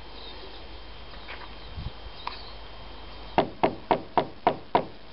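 Six quick knocks on a wooden door, about three or four a second, starting a little past halfway.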